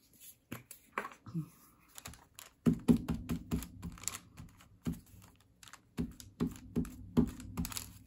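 A glue stick being rubbed over paper on a tabletop: scattered light taps and paper handling at first, then from about three seconds in a run of repeated rubbing strokes, a few per second.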